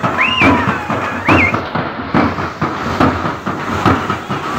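Dappu frame drums beaten in a fast, steady rhythm of sharp strokes, over the hiss of rushing floodwater. Two short rising high calls cut in during the first second and a half.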